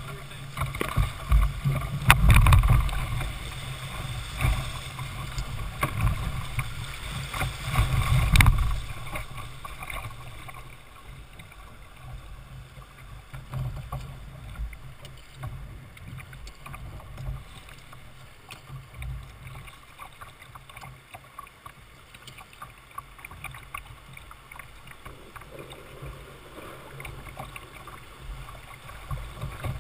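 River rapids rushing and splashing against the bow of a Jackson Coosa kayak, with heavy, uneven buffeting through the first eight or nine seconds. After that the water is calmer, a quieter steady rush with light scattered splashes, until it picks up again near the end.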